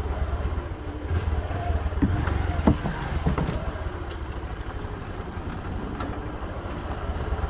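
Motorcycle engine running at low speed, a steady low pulse, with a few short sharp sounds about two to three and a half seconds in.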